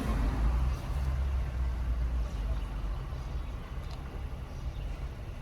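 Low rumble that slowly fades.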